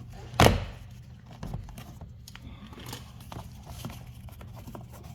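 Clips of a tight plastic door trim piece on a 2023 Acura Integra popping loose as it is pried off. One sharp, loud crack comes about half a second in, then a few light clicks and taps, and another sharp crack at the very end.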